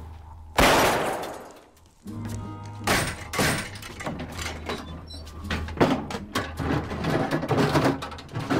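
A single loud bang about half a second in, dying away over about a second and a half. Then dramatic film-score music with a low steady drone and repeated percussive hits.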